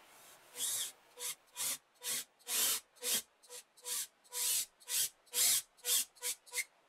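Handheld power drill run in about a dozen short bursts, each a quick spin-up and stop, its large bit boring into plywood through a depth-stop jig.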